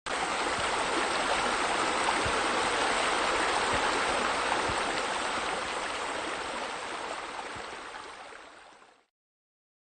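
Steady rush of running water, like a pool water feature, fading out and stopping about nine seconds in.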